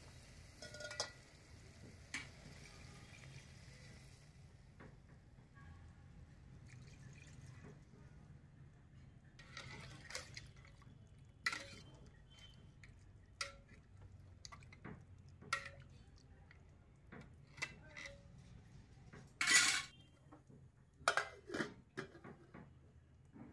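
Metal ladle knocking and scraping against an aluminium cooking pot as chicken is stirred in water, in scattered separate clinks. A louder clatter comes a few seconds before the end, followed by quick knocks as a steel lid is set on the pot.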